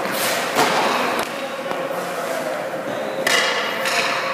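Hockey skate blades scraping across rink ice twice, once near the start and again a little past three seconds in, with a few sharp clacks between them and a faint steady hum underneath.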